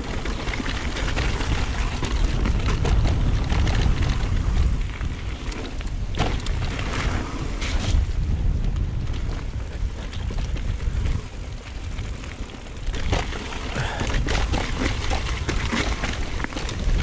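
Mountain bike descending a dirt trail: tyres rolling over dirt and roots, with a steady low rumble of wind on the camera microphone and scattered knocks and rattles from the bike over bumps.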